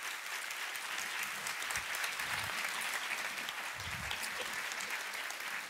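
Large audience applauding steadily at the end of a lecture.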